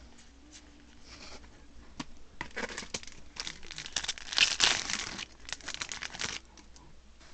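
Foil trading-card booster pack crinkling in the hands and being torn open, loudest around the middle and stopping about a second before the end.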